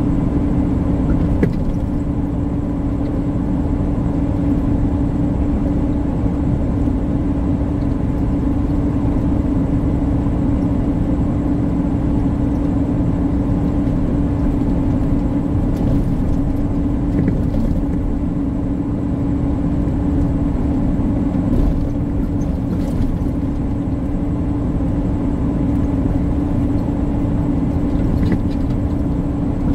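Inside a tractor-trailer's cab at highway speed: the truck's engine and tyres make a steady drone over a low road rumble, without change.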